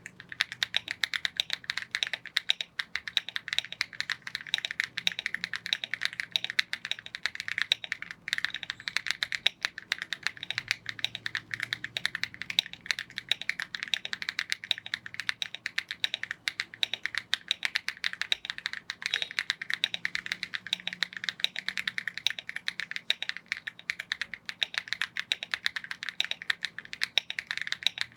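Rainy75 mechanical keyboard fitted with Akko V3 Cream Yellow linear switches being typed on continuously, a fast, steady stream of key clacks.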